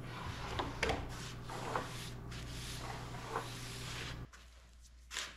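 Faint workshop handling noise: a wooden trim strip and hand tools being moved and set down on a wooden benchtop, a few light knocks and rubs over a steady low hum. The hum cuts off about four seconds in, and a single louder knock or scrape comes near the end.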